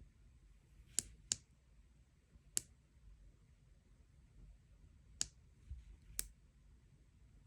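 Menu button on a digital water flow meter being pressed, giving five short plastic clicks at uneven intervals while the setting is changed.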